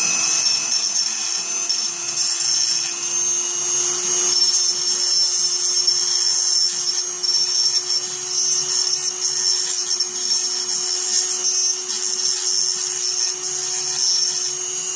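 Small handheld power tool running steadily at high speed with a constant whine, grinding the burrs off the metal post of a die-cast toy car.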